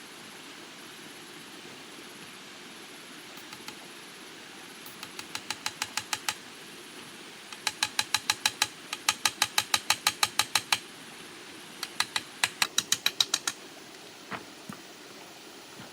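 A rapid series of sharp clicks, about six a second, in three runs; the first grows louder as it goes. A steady hiss lies underneath.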